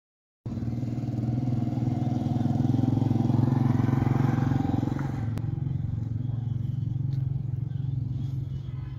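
An engine running steadily, growing a little louder and then fading toward the end.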